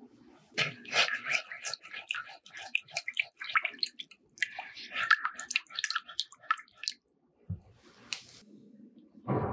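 A silicone spatula stirs a milk and yeast mixture in a wooden bowl, with fast, irregular wet squelches and clicks until about seven seconds in. A soft thump comes near the end.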